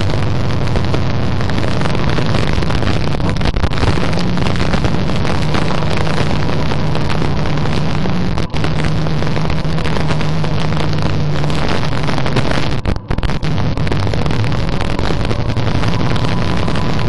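Massey Ferguson tractor engine running loud and steady with a low hum, heard from the seat as the tractor drives along towing its wagon. The sound drops out briefly twice, about eight and a half and thirteen seconds in.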